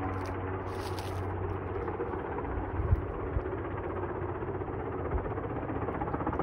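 Helicopter flying nearby: a steady rotor and engine noise with fast rotor chop, growing a little louder near the end. A single knock about three seconds in.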